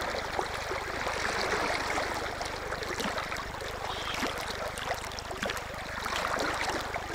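Shallow stream water rushing and rippling, with small splashes from a hooked brown trout thrashing at the surface.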